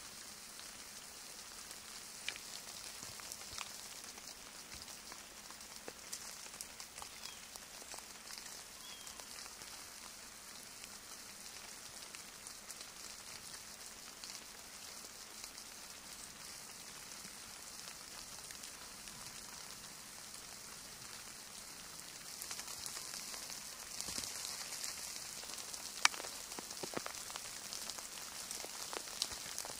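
Light rain and melting snow dripping, a steady patter with many small scattered drops. It grows a little louder about 22 seconds in, and one sharper drop lands about 26 seconds in.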